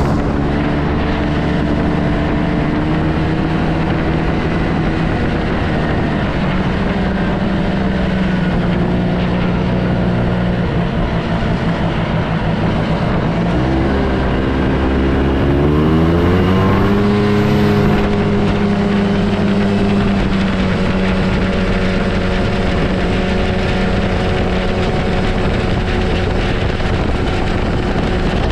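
Yamaha Bravo snowmobile's two-stroke twin engine running at a steady cruise. About halfway through its pitch drops briefly as it slows, then rises as it speeds back up and holds a slightly higher steady note.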